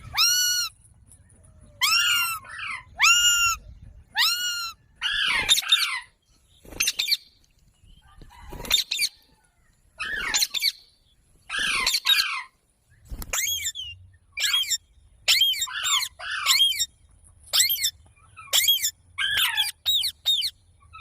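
Parrot calling: a long run of short, harsh screeching calls with near quiet between them, spaced out at first and coming quicker, about one and a half a second, in the second half.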